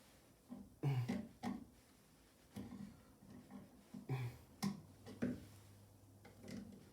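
Irregular clicks and knocks of hand work on an electrical wall outlet with a screwdriver, in scattered short strokes, loudest about a second in and again around four seconds in.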